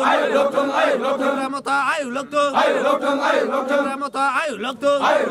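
A group of men chanting slogans together in loud unison, the shouted phrases broken by short pauses.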